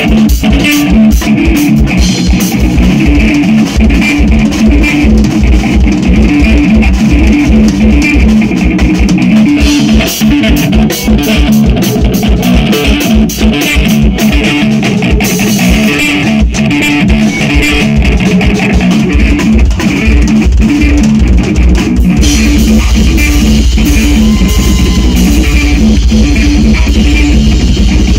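Instrumental rock band playing live: two electric guitars over a drum kit, with no vocals. In the last several seconds the drumming gets denser, with a steady wash of cymbals.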